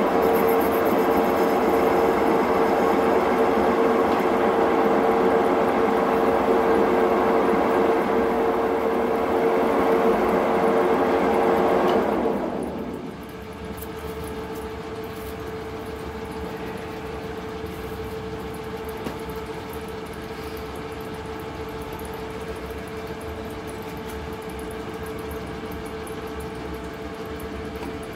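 Metal lathe turning an orange plastic workpiece: a steady motor hum under a loud whirring cutting noise. About twelve seconds in, the cutting noise falls away and a quieter steady hum carries on.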